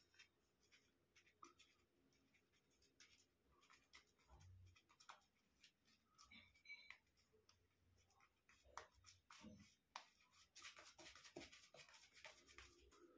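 Faint scratchy scraping of a wet-shaving razor drawn against the grain over lathered stubble: a series of short strokes, coming thicker and faster near the end.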